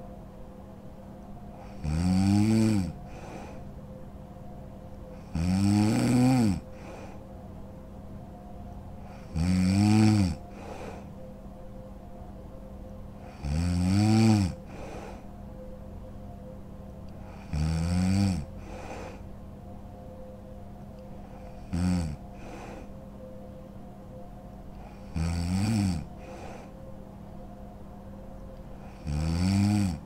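A sleeping woman snoring: eight evenly spaced snores, one about every four seconds, each about a second long and rising then falling in pitch; the one about 22 seconds in is shorter. A faint steady hum runs underneath.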